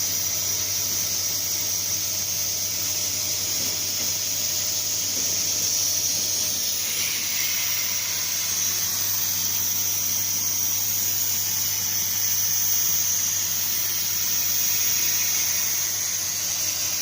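CNC plasma cutter's torch running, a steady high-pitched hiss with a low hum underneath.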